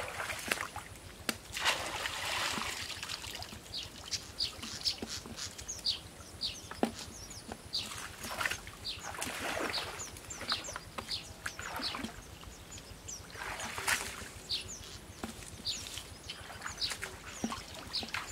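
Muddy pond water splashing as a plastic basin of water is scooped up and flung out, three times, bailing the pond down to get at the fish. Short high chirps run throughout.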